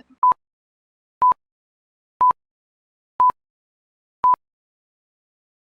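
Countdown timer beeping: five short electronic beeps of the same single tone, one a second, timing the answer to a quiz question.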